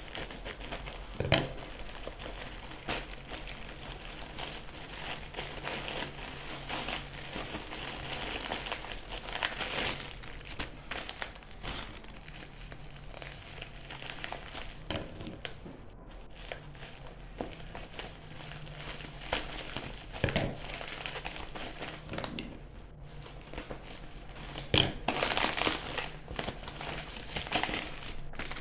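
Parcel packaging crinkling and rustling as it is handled and opened, with scattered sharp snaps and clicks and a louder burst of crinkling near the end.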